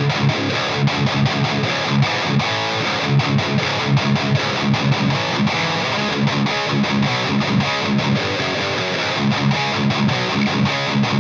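Electric guitar played through an EVH 5150 III LBX amp head at high gain: tight, rhythmic distorted riffing with repeated low chugs.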